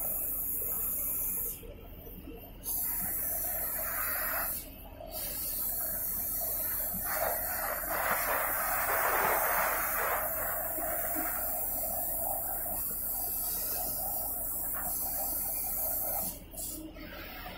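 Oxy-fuel cutting torch hissing steadily as its flame and oxygen jet cut round holes through a steel bar. The hiss drops away briefly about two seconds in, again near five seconds, and near the end. It swells louder in the middle.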